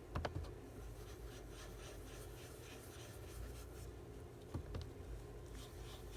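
Faint, repeated rubbing strokes on paper journal cards as their edges are distressed, with two light knocks, one near the start and one about four and a half seconds in.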